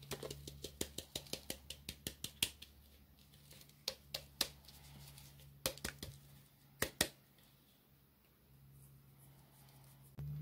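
A clear ornament globe being shaken and tapped over a plastic tub to knock out the loose glitter: a quick run of light ticks for the first two seconds or so, then a few scattered taps.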